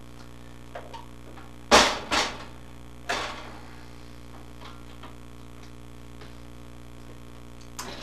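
Sharp plastic knocks from a jump starter and its leads being handled while a fan is hooked up: two knocks about two seconds in and a third a second later. A small 12-volt fan motor hums steadily underneath.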